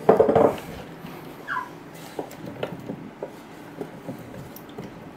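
Parboiled potato chunks clattering into a nonstick air-fryer basket, followed by light knocks and scrapes as they are spread out with a utensil.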